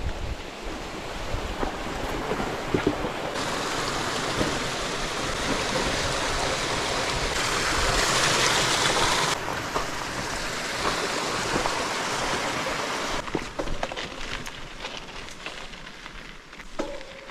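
Rushing water, a steady hiss that swells about three seconds in, is loudest a few seconds later, then falls back in steps.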